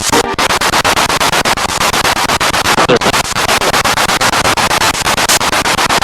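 Spirit box radio sweeping through stations: loud static chopped into rapid, even pulses about ten a second, with a couple of brief tonal fragments.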